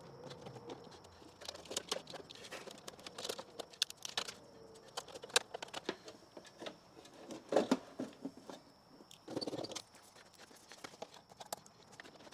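Irregular small clicks, taps and rustles of wires and metal parts being handled while ground wires are connected in an electrical panel, with a faint steady high whine underneath.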